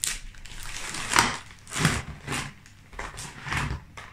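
Plastic air-column packaging crinkling and rustling in a series of irregular bursts as it is handled and pulled open, the loudest just after a second in.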